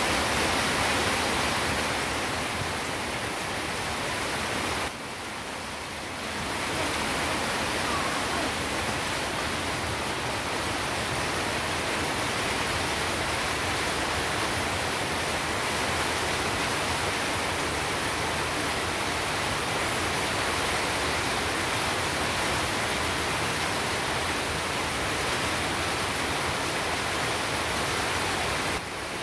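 Heavy rain pouring steadily, a dense even hiss of falling water; it drops for a moment about five seconds in.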